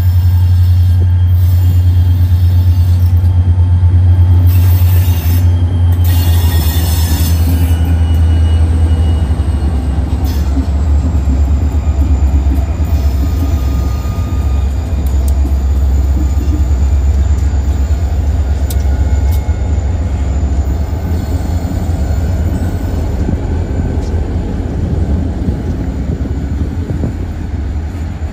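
Wheeling & Lake Erie freight train rolling past: a steady, loud low rumble of wheels on rail with faint wheel squeal, easing off slightly near the end.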